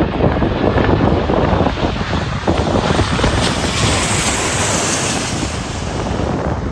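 Twin-engine jet airliner passing low overhead on its landing approach, its engine noise swelling to a peak about four seconds in and then easing. Heavy wind buffets the microphone throughout.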